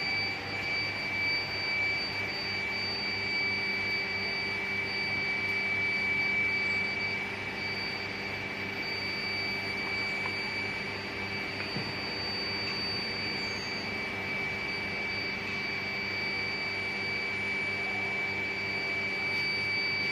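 Electric induction furnace running: a steady high-pitched whine over a low hum and an even rushing noise.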